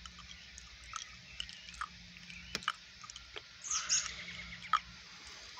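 Quiet scene with scattered small clicks and a short burst of chirping about four seconds in, over a low steady hum.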